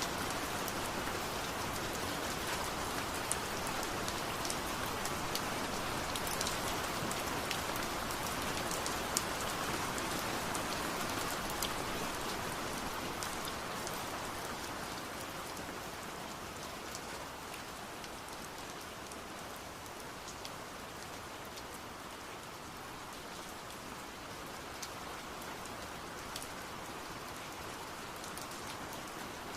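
Steady rain falling and pattering on surfaces, an even hiss with many small drop ticks, easing slightly about halfway through.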